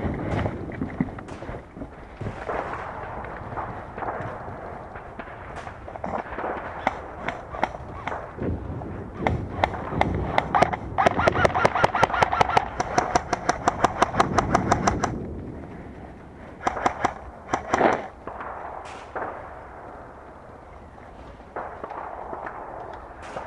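Airsoft guns firing in a skirmish: scattered single shots throughout, and in the middle a long full-auto burst of rapid, evenly spaced shots with a steady electric gearbox whine under it.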